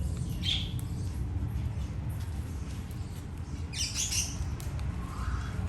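Birds calling: a short chirp about half a second in, a louder, harsh squawking call of several quick notes around four seconds in, and a lower call near the end.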